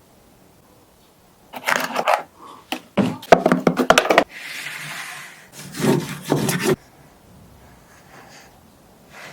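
Cardboard box and packaging of a Bluetooth speaker being handled and opened. There is rubbing about two seconds in, a quick run of clicks and scrapes around three to four seconds, then a smooth sliding hiss as contents slide against the cardboard, and another rub.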